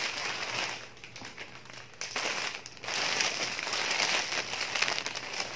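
Clear plastic packaging crinkling and rustling in irregular bursts as a kurti is pulled out of its polybag, louder in the second half.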